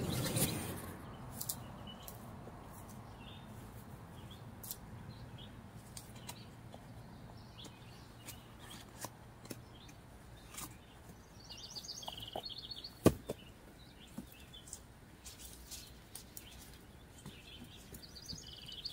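Quiet outdoor ambience with birds chirping intermittently and scattered small clicks, and a single sharp knock about 13 seconds in.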